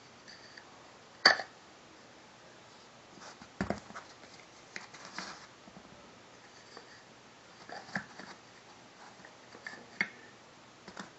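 Wooden toy train track pieces and plastic track risers being handled and fitted together, giving scattered knocks and clicks; the sharpest click comes about a second in, a duller thud a few seconds later.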